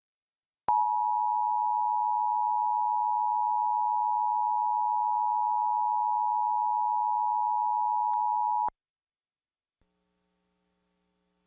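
Emergency Alert System attention signal: two steady tones, 853 and 960 Hz, sounded together. It starts abruptly just under a second in and cuts off after about eight seconds, heralding a required monthly test of the system.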